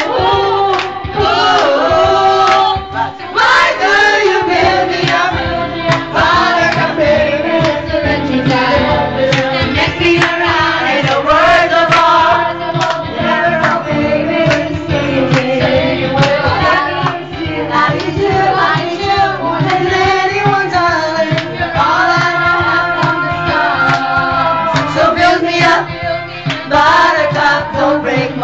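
Karaoke: several young women singing into a microphone over a pop backing track with a steady beat.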